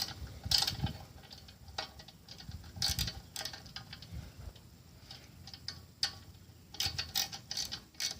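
Irregular metallic clicks, rattles and scrapes of hand work on a small engine's throttle cable and the dune cycle's steel chassis as the cable is freed.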